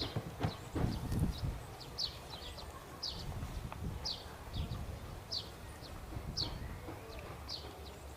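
A bird calling over and over, a short high note that falls in pitch, about once a second. Some low thumps and rustling in the first second or so.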